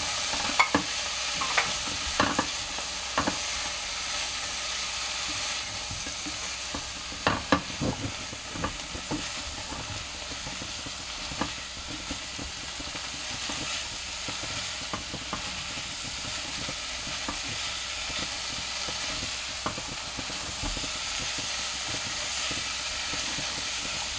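Broccoli, carrot and corn sizzling in butter in a nonstick pot while a silicone spatula stirs them. The spatula knocks and scrapes against the pot now and then, most often in the first few seconds and again about seven to eight seconds in.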